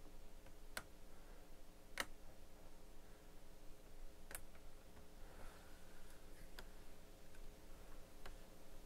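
Plastic spudger tools clicking and tapping against the keyboard bezel and retaining tabs of a Dell Inspiron N5040 laptop as the keyboard is pried free: a handful of sharp, separate clicks, the loudest about two seconds in, over a faint steady hum.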